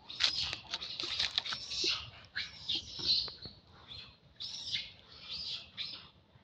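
Small birds chirping: a quick run of short, high notes, a few every second, with a few sharp clicks among them.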